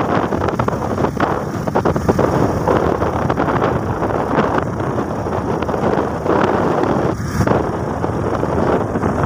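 Wind buffeting the microphone, a loud, uneven rumbling hiss.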